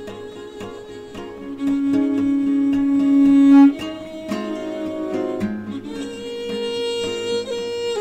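Instrumental background music: plucked guitar with long held notes over it, the loudest a single held note in the middle that cuts off sharply.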